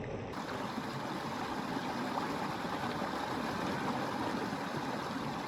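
Steady rush of flowing water, an even hiss with no rhythm or pitch.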